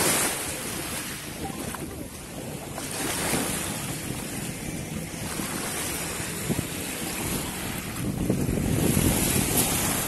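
Small sea waves washing and splashing in the shallows, with wind noise on the microphone; the surge grows louder near the end.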